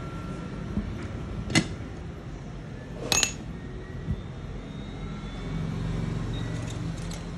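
Small tools clinking sharply twice, about a second and a half apart, during phone board repair work, over a steady low background hum.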